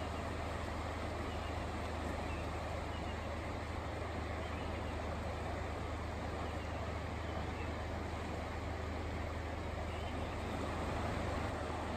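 Steady rushing of a swollen, fast-flowing floodwater river, with a constant low hum underneath.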